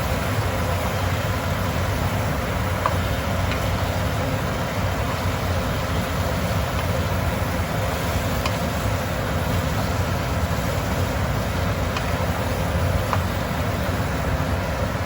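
Steady rushing background noise, with a few faint clicks of a spoon against the cooking pot as the beef and tomato sauce are stirred.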